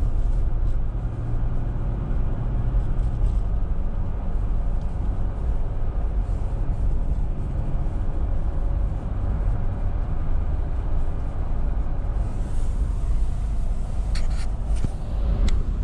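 Car driving on the road, heard from inside: a steady low rumble of engine and road noise, with a few short clicks near the end.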